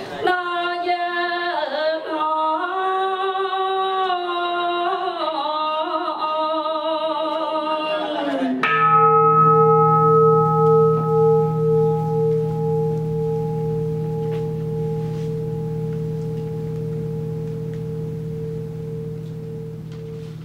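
A single voice sings a slow chant in long held, bending notes. About nine seconds in, a metal bowl-bell is struck once and rings on with a slow wavering hum, slowly fading.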